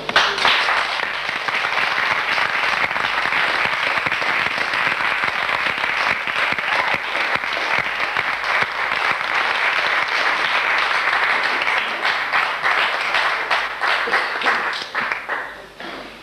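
Theatre audience applauding: a full burst of clapping that breaks out at once, holds steady, then thins out to scattered claps and dies away near the end.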